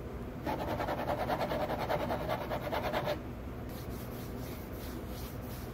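Rapid, even clicking of a kitchen utensil worked in a bowl, about ten strokes a second for about two and a half seconds, then a few scattered light clicks.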